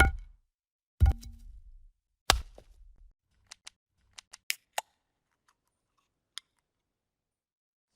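Designed video-transition sound effects: three sharp hits about a second apart, each with a short low tail, followed by a quick run of small clicks and ticks.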